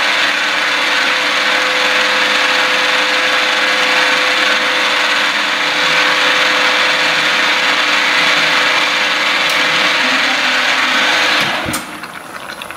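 CNC mill end mill cutting a slot into an aluminium 1911 .22 slide under coolant spray: a steady, even cutting and spraying noise with a constant whine. This is a too-shallow pass, taking off about 31 thou because the depth was mistyped. Near the end the noise drops off sharply, with a click, as the cutter lifts clear of the slide.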